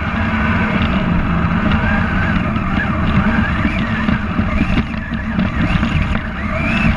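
Electric drivetrain of a Kyosho Blizzard RC snow cat whining, its pitch rising and falling with the throttle, over a steady low rumble.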